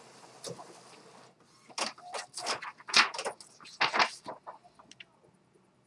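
A freshly printed check page being pulled from an Epson WorkForce 840 inkjet printer and handled: a run of irregular clicks and paper rustles from about two seconds in until about four seconds in, then only faint small ticks.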